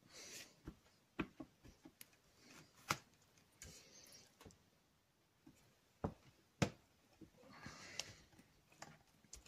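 Clear acrylic stamping block and ink pad handled on a craft mat while stamping script lettering: scattered light clicks and knocks, the sharpest two close together past the middle, with soft rubbing and dabbing between.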